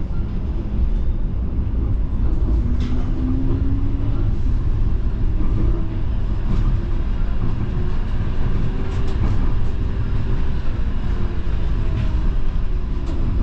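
Inside a moving streetcar: the steady low rumble of wheels on the rails and the running gear, with a faint hum and a few light clicks and rattles.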